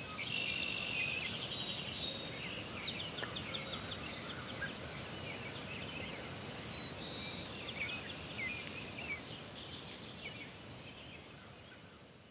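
Small birds chirping and singing over a steady background hiss, with a fast high trill about half a second in; the sound fades toward the end.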